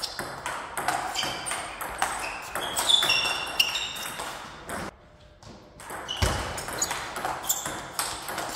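Table tennis rally: the celluloid-type ball clicking rapidly off rubber paddles and the table, each hit with a short high ring. The hits stop for about a second near the middle, then play resumes with a sharp hit.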